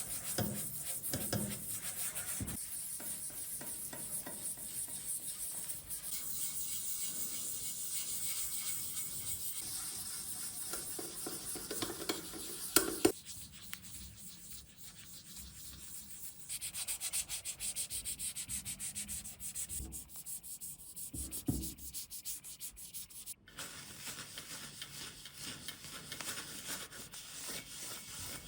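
Hand sanding: abrasive rubbed back and forth over a part in quick, fine strokes, in several stretches, with a sharp click about halfway through.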